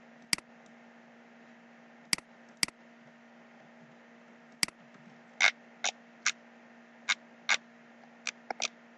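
Computer mouse clicking: four sharp, isolated clicks in the first half, then a quicker run of about eight softer clicks, over a faint steady low hum.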